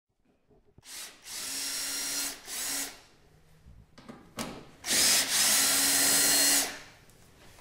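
Power drill/driver spinning in three short bursts, then a longer run of about two seconds, driving out a screw on a small engine's carburetor cover.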